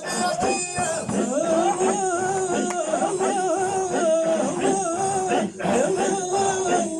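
Men singing a Moroccan Sufi devotional chant in a wavering melismatic melody, with light hand percussion.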